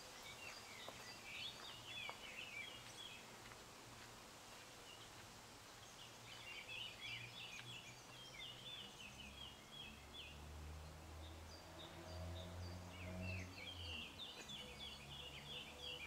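A songbird singing faintly outdoors: three quick chirping phrases a few seconds apart. A low steady hum rises and fades in the second half.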